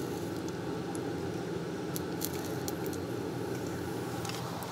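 A steady low hum with a few light metallic clicks from hemostats and a small connector being handled during soldering.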